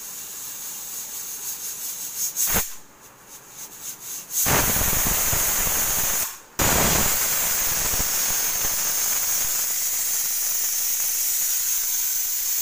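Pressure cooker whistling on high flame: steam hisses and sputters from the weight valve at first. From about four seconds in comes a loud continuous rush of escaping steam, broken once briefly, the sign that the cooker has reached full pressure and is releasing a whistle.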